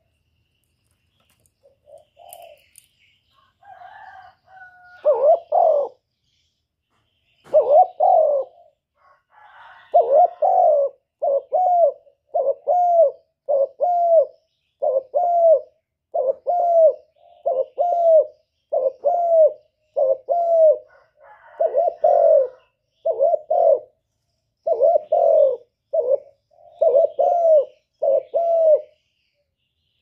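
Spotted dove cooing at close range: a few scattered coos, then a steady string of about twenty short, arched coos at roughly one a second.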